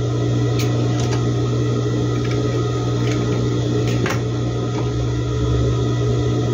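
Electric sewing machine running with a steady low hum, with a few light clicks.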